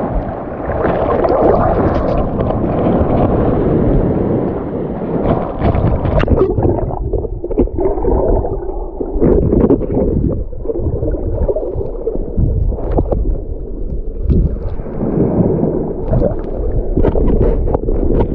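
Muffled churning and gurgling of water heard through a camera underwater, with scattered short clicks and knocks.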